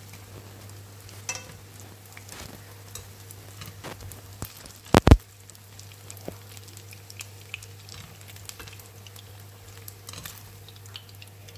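Sweet-corn patties sizzling and crackling in shallow oil in a pan, with light clicks as chopsticks lift them out. A sharp double knock about five seconds in is the loudest sound.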